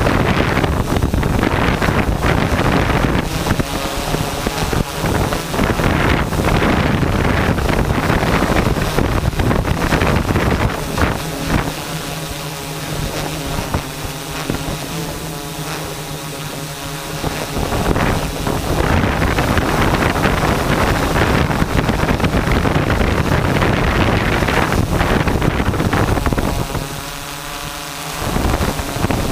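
Wind buffeting a microphone on a moving camera: loud, rough and gusty. It eases twice, around the middle and near the end, and a low steady hum shows through in those lulls.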